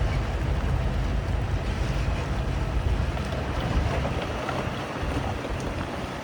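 Heavy earthmoving machinery's diesel engine running with a low rumble, with wind noise on the microphone; the rumble eases somewhat near the end.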